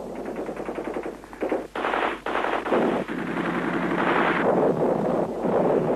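Machine-gun fire: a run of rapid shots, then several louder bursts.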